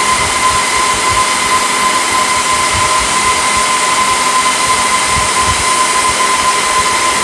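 Dell PowerEdge 2950 rack server's cooling fans running: a loud, steady rushing whoosh with a steady high whine over it.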